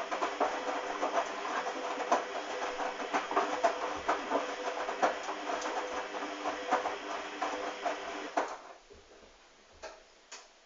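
Hoover DYN 8144 D washing machine running, its motor humming with an irregular clatter of clicks and knocks from the turning drum. The motor cuts off suddenly about eight and a half seconds in, followed by two faint clicks.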